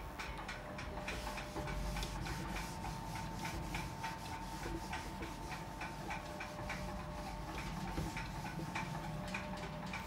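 A whiteboard being wiped clean, with quick, repeated rubbing strokes across the board.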